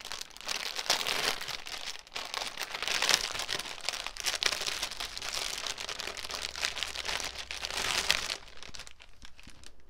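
Crinkling and rustling of the packaging that holds a cross-stitch kit's embroidery floss as it is handled, with many small crackles. The crinkling stops about eight seconds in.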